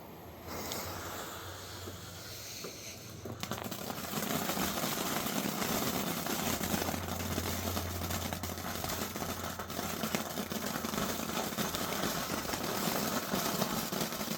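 Ground fountain firework (Miracle Fireworks' Magic Castle) lit and spraying: a steady hiss, peppered with crackles, that starts loudly about three seconds in and runs on.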